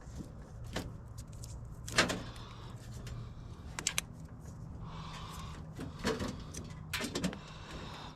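Scattered knocks and clanks of metal parts and tools being handled while a water heater is dismantled for scrap, the loudest about two seconds in, over a faint steady low hum.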